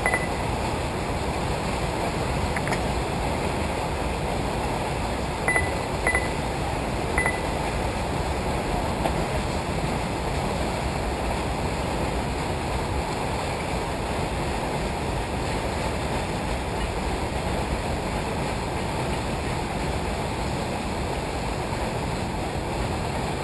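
Steady wind rushing over the microphone outdoors, with a few short high beeps, one at the start and three between about five and seven seconds in.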